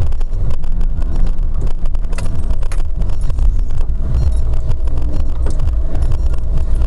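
Off-road vehicle running over rough ground: a loud, steady low engine and drivetrain rumble, with a few sharp knocks about two to four seconds in.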